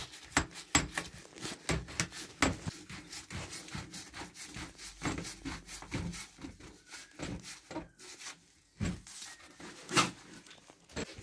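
Gloved hand gripping and twisting a plastic sump-pump discharge pipe at its coupling: irregular rubbing and creaking with scattered knocks, the loudest about ten seconds in.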